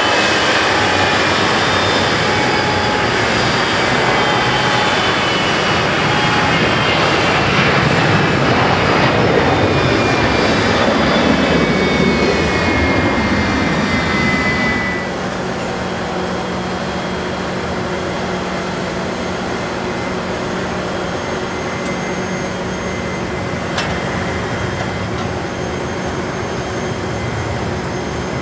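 Parked airliner's jet engines spooling down after arriving at the gate: a loud roar with whines that slowly fall in pitch. About halfway through the roar drops off abruptly, leaving a lower steady hum.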